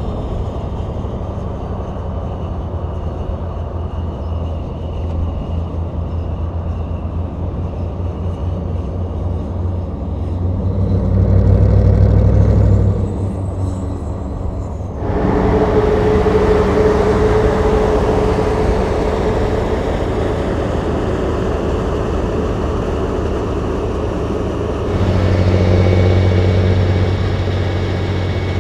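Vintage semi trucks' diesel engines running at highway speed, with tyre and road noise. A louder, deep engine note swells up a little under halfway through. About halfway the sound changes abruptly to a brighter, busier engine sound, and near the end another deep engine note rises.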